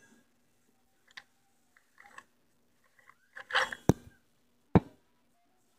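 Handling noise: soft rustling and a few sharp plastic clicks and knocks, the loudest just before four seconds and near five seconds, over a faint steady hum.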